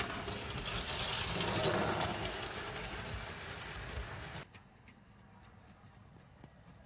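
Model train running close by: the locomotive's electric motor whirring and Hornby four-wheel coaches clicking over the rail joints. The sound drops sharply about four and a half seconds in, leaving only faint running.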